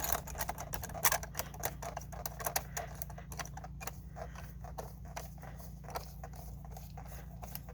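Irregular run of small clicks and ticks, thick at first and thinning out, from the plastic threaded collar on a sand filter's top being screwed down onto the bowl by hand.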